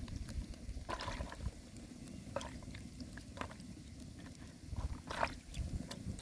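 Hands washing chili peppers in a plastic basin of water: small splashes and drips, a few sharper ones scattered through.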